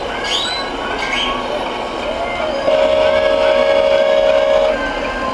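Model truck's electronic air-horn sound, a steady two-note blast held for about two seconds starting a little past halfway, over the murmur of voices.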